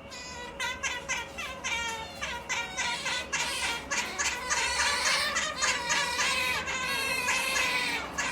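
Pet otters giving a rapid string of short, high-pitched calls, several a second, growing louder after the first couple of seconds: the noise they make when sleepy.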